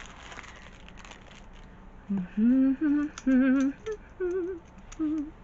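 A woman humming a short tune in several held notes, some with a wavering pitch, starting about two seconds in and stopping just before the end.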